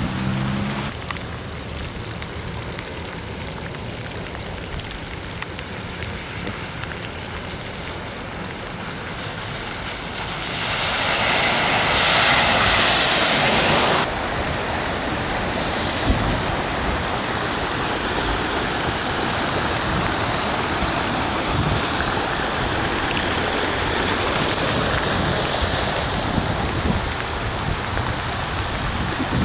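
Heavy rain falling on flooded pavement, a steady rushing hiss with wind buffeting the microphone. It swells louder for a few seconds near the middle.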